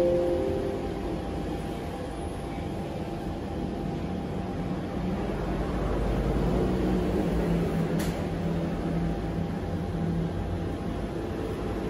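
Steady low mechanical hum, with a faint click about eight seconds in.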